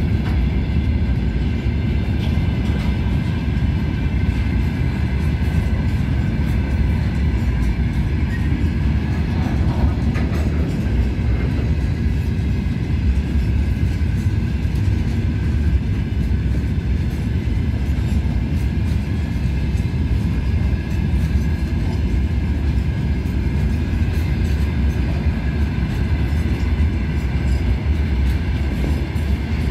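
Loaded iron ore pellet wagons of a heavy freight train rolling past: a steady, dense rumble of steel wheels on the rails, with faint high ringing tones above it.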